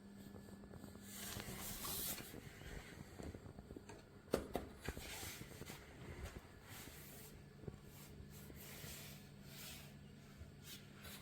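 Faint handling noise: scattered light clicks and rustles over a low steady hum, the sharpest click about four seconds in.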